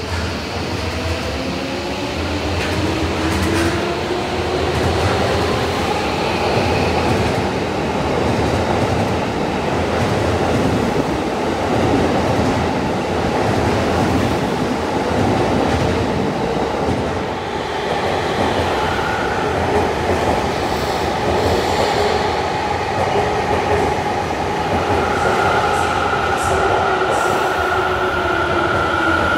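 Tokyo Metro Hanzomon Line subway train pulling out of an underground station, its traction motors whining upward in pitch as it accelerates over the first few seconds, with steady wheel-on-rail rumble and clatter. Near the end a second train comes in, adding a steady high whine.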